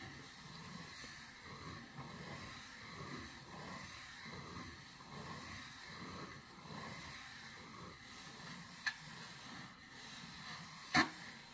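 Faint scratching and rustling of a cat's claws on a balloon, with two sharp taps: a small one and, about a second before the end, a louder one.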